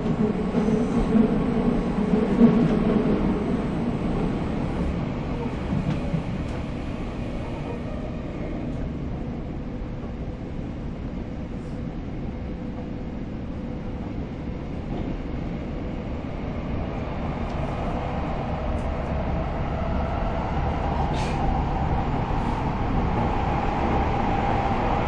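Steady running noise of a moving passenger train, heard from inside the carriage by an open door, with a few faint clicks. It eases off somewhat in the middle and grows louder again toward the end.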